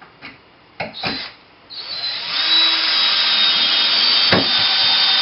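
A power drill-driver running steadily with a high whine for about three and a half seconds, driving a screw into a wooden brace. A few short knocks come about a second in, before it starts.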